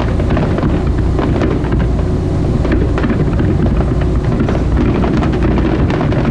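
Fireworks bursting and crackling in many short, irregular cracks over a steady low rumble from the boat and wind on the microphone.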